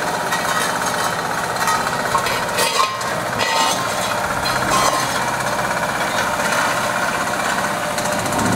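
Road-repair machinery running with a steady, rapid mechanical rattle, with a few metallic clinks a little before halfway through.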